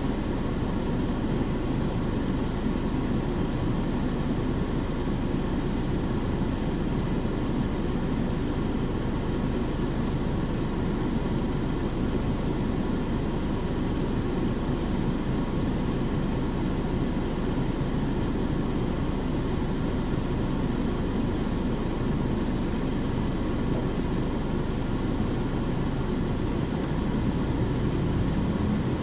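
KC-UA460HSN diesel city bus running steadily, its engine and drivetrain rumbling evenly as heard from inside the cabin.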